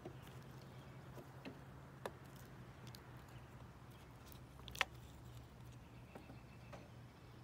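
Faint scattered clicks of nuts shifting and knocking in a plastic bowl as a gray squirrel digs through walnuts and pecans, with one sharper click a little before five seconds. A faint steady low hum runs underneath.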